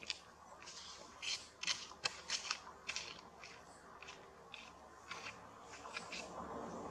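Macaque grooming a baby monkey's fur: short dry clicks and smacks in an irregular run, several a second for the first three seconds, then sparser.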